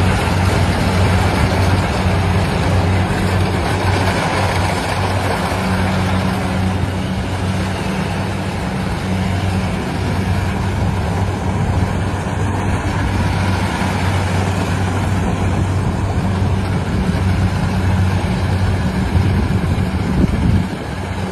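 Engine of a rice-harvesting machine running steadily, a constant low hum under dense mechanical noise. The hum drops away near the end.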